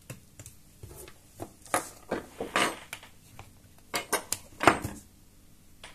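Irregular light clicks and small clattering knocks of hand handling on an opened laptop, as a charger cable's plug is pushed into the laptop's DC power jack; the loudest click comes near the end.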